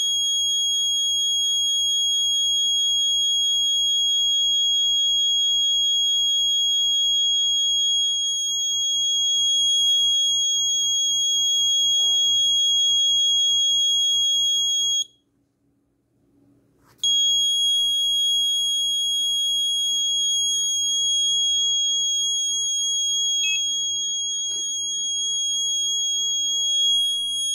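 Piezo alarm buzzer on an Arduino board sounding one continuous high-pitched tone. It cuts out about halfway through, stays silent for about two seconds, then comes back on.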